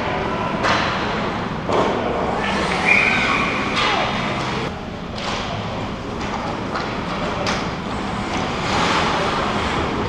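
Rink-side sound of an ice hockey game: a steady arena hubbub broken by several sharp knocks against the boards and glass.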